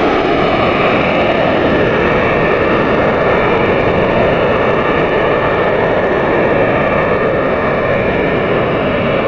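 Jet airliner noise: a steady, even rush of engines and airflow with a few faint tones above it, unchanging throughout.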